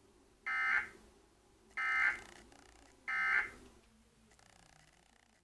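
Emergency Alert System end-of-message data tones: three short, harsh digital buzzing bursts about 1.3 s apart, signalling that the alert message has ended.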